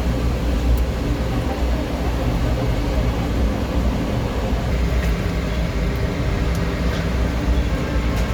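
A steady low mechanical hum from a running machine, with a few faint clicks.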